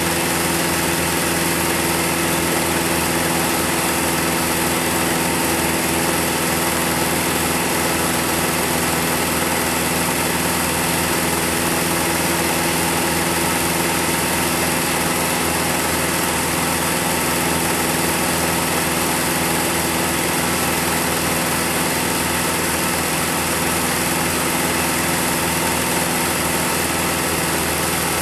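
Home-movie film projector running: a steady mechanical whirr with an even hum that does not change.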